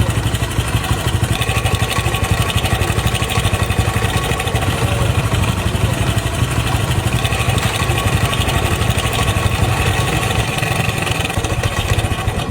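Motorcycle engine idling steadily, shut off at the very end.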